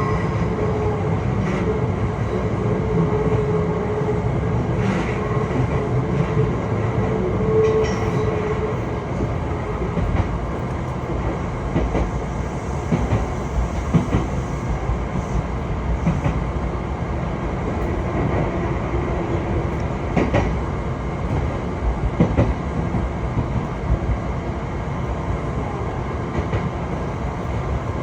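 Electric train running along the line with a steady rumble and wheels clicking now and then over rail joints. A humming tone sounds for the first several seconds, then fades.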